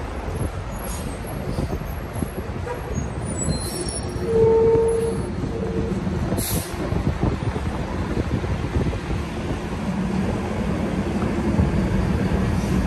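City street traffic rumbling steadily, with heavy engines running. About four seconds in, a vehicle horn sounds once long and then once short, followed by a brief hiss.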